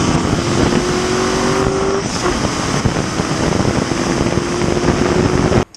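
A Ford 4.6-litre V8 running hard at high revs, fed nitrous oxide through a wide-open line straight into the intake manifold with no jet. The engine note climbs slightly over the first couple of seconds, then holds, and the sound starts and stops abruptly.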